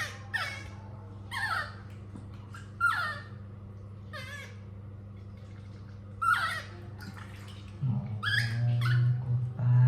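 Baby monkey crying: a series of short, high squeals, each falling steeply in pitch, one every second or two, over a low steady hum that gets louder near the end.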